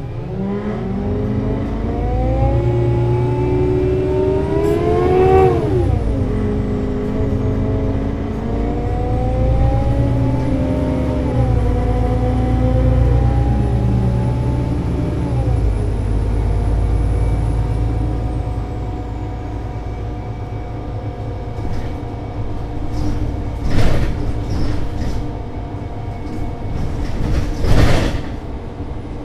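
Solaris Urbino 18 IV articulated bus, DAF diesel engine with Voith DIWA 6 automatic gearbox, pulling away: the engine note climbs, drops at an upshift about five seconds in, climbs again and shifts again about eleven seconds in. A few seconds later the throttle eases and it runs on at a steadier lower note, with two sharp knocks near the end.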